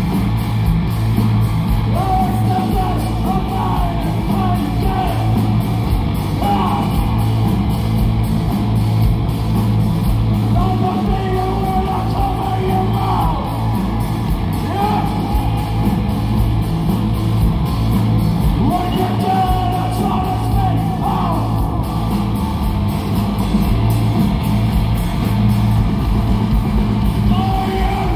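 Live rock band playing: a male singer holding long, bending notes over electric guitars, bass guitar and drum kit, heard through the venue's PA.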